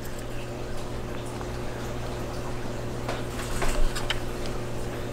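A few faint small clicks and taps, mostly about three to four seconds in, over a steady low electrical hum.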